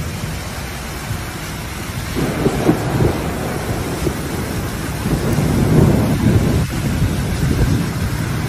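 Thunderstorm: heavy rain pouring over a flooded road, with deep rumbles of thunder swelling about two seconds in and again around five to seven seconds in.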